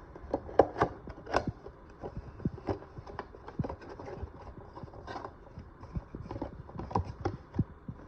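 Irregular light knocks and clicks, a few sharper than the rest, as the coffee maker's plastic parts and permanent coffee filter are handled.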